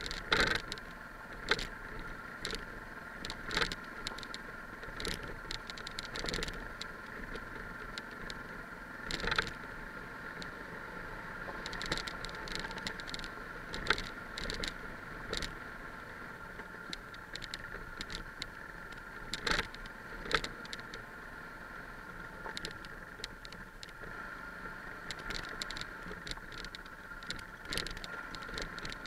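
Yamaha XT660 single-cylinder trail motorcycle riding over a loose, stony dirt track: a steady engine drone with frequent knocks and rattles as the bike jolts over stones and ruts.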